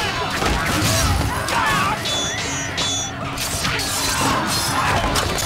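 Battle-scene sound effects: steel blades clashing with short ringing clangs, three in quick succession about two seconds in, amid men yelling and dramatic score music.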